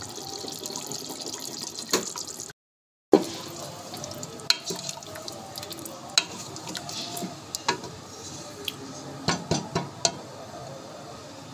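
A pot of aloo gosht (potato-and-meat curry) bubbling on the stove with a steady hiss. After a short break, a spoon stirs it, knocking against the side of the pot again and again.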